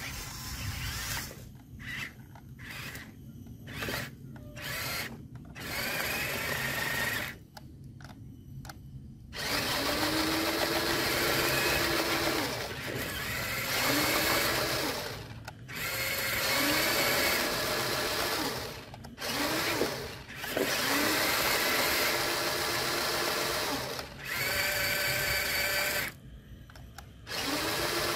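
Electric drive motors and gearboxes of radio-controlled model trucks whining in repeated bursts of a few seconds as the throttle is applied and let off, each burst rising in pitch as the motor spins up, with short pauses between. The trucks are working in a mud puddle, straining to get free.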